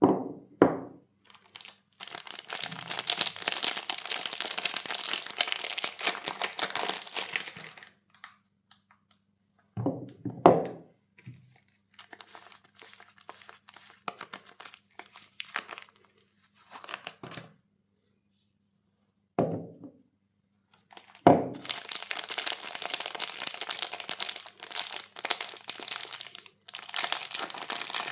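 Soap bar wrappers being crinkled and torn open, in three long stretches of rustling and crackling. A few sharp knocks fall between them.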